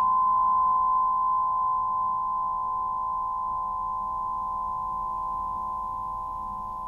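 Quartz crystal tubes of a Quartzophone crystal harp ringing after a felt-mallet strike at the start, several notes sounding together as long, pure, steady tones that slowly fade.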